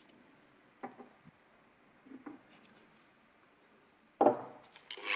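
Light clicks and taps of a tool or workpiece being handled, then one louder knock about four seconds in.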